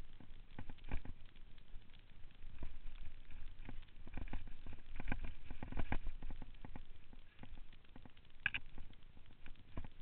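Mountain bike rolling over rough trail: a low rumble with irregular clicks, knocks and rattles, busiest about halfway through, and a sharper, higher click near the end.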